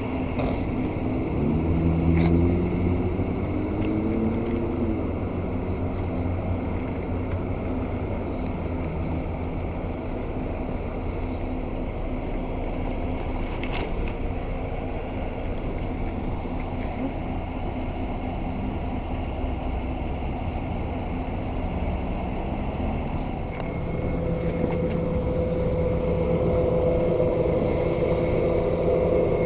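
City road traffic: cars and trucks running past in a steady low rumble, with a vehicle speeding up, its engine pitch rising, in the first few seconds. A steady machine hum joins about 24 seconds in.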